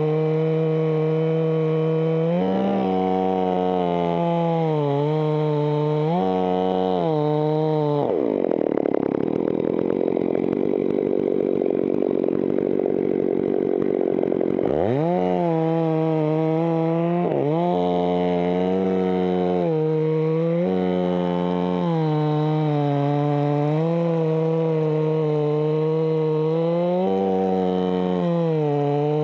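Two-stroke Stihl chainsaw running at high revs while cutting through eucalyptus trunk wood. Its pitch sags and recovers several times as the bar is loaded in the cut. For about six seconds in the middle the steady note drops away into a rougher, noisier sound, then revs back up.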